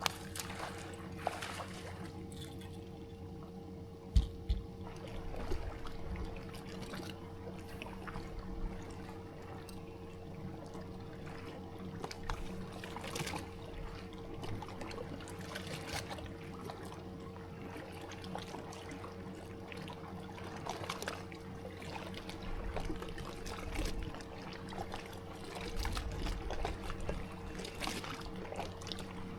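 Water trickling and lapping against a fishing boat's hull, under a steady hum, with scattered light clicks and one sharp knock about four seconds in.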